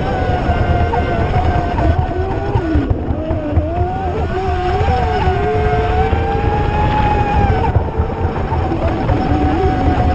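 Electric brushless RC speedboats running on the water. Two motor whines at different pitches rise and fall with the throttle, over a steady low rumble.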